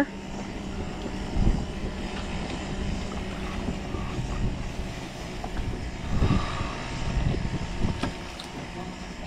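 AirBuddy snuba air compressor running with a steady hum, with a few short noisy bursts about 1.5 s, 6 s and 7.5 s in.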